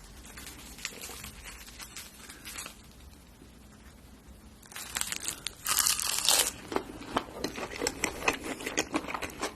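Crisp crunching and crackling of food being bitten and chewed close to the microphone, faint at first, then loud and dense from about five seconds in.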